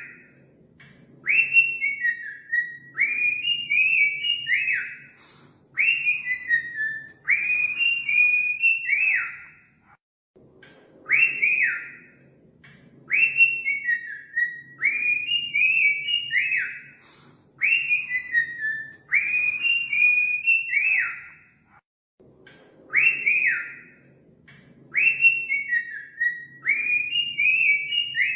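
Cockatiel whistling its song: quick runs of clear whistled notes that glide up and down. The same song repeats over and over, with a short gap about every eleven seconds.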